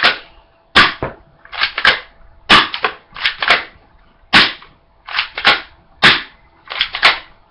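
A Glock-style airsoft pistol firing about a dozen sharp cracks at close range, at an uneven pace of roughly one every half second to a second, the BBs striking a pair of sunglasses.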